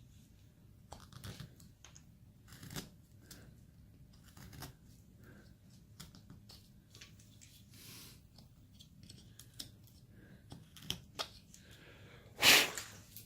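Carving knife slicing into basswood: short, irregular cuts and scrapes as chips come off, with one louder, longer stroke near the end.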